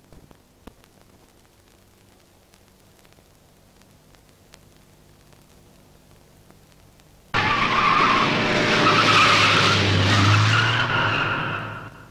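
Car tyres screeching loudly, starting suddenly about seven seconds in after near quiet and fading away shortly before the end, as a sedan speeds off and goes airborne.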